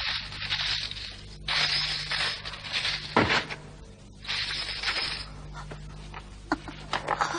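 Cartoon soundtrack: three short bursts of breathy hissing over a low steady hum, with a brief falling tone about three seconds in.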